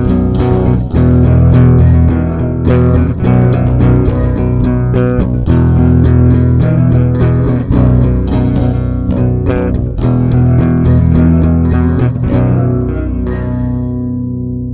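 Instrumental ending of a song, with bass guitar and plucked string instruments playing a steady run of notes. The playing stops about 13 seconds in, leaving a last chord ringing and fading away.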